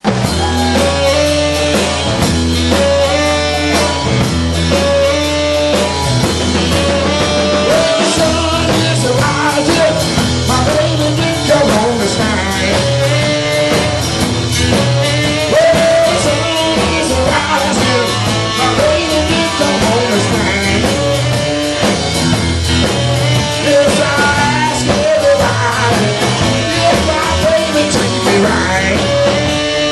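Live rock and roll band playing loud, with electric guitar, a steady beat and a man singing.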